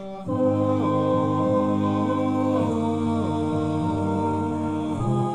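Music in a wordless break of a slow, sombre song: sustained low notes under humming-like voices, swelling up sharply a moment after the start.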